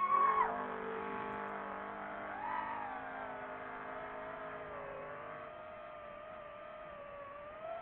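A motor revving up and down. Its pitch peaks right at the start and drops, climbs again about two and a half seconds in, then settles into a steady whine that slowly falls.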